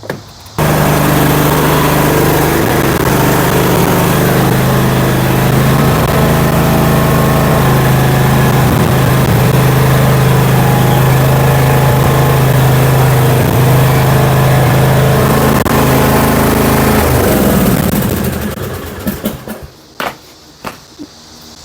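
Murray riding lawn mower's engine running steadily under load while towing an engineless car up a slope on a tow strap. It comes in abruptly about half a second in and winds down near the end, followed by a few clicks.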